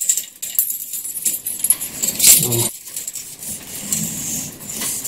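Kerosene-soaked scouring pad scrubbed along a steel clock mainspring stretched in a mainspring winder, a scratchy rasping with the loose steel coils clinking and jangling against each other.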